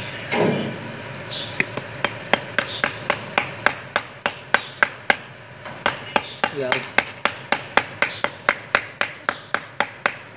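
A small hammer tapping a short metal sleeve set over a battery's lead terminal post. The sharp taps come in a quick, even rhythm of about three a second, starting after a short pause at the beginning.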